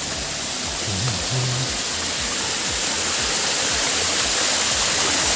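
Small waterfall's rushing water, a steady dense roar of falling water that grows slightly louder.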